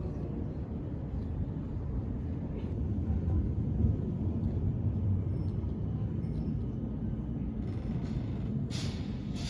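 Steady low rumble of a moving vehicle, with a short hiss near the end.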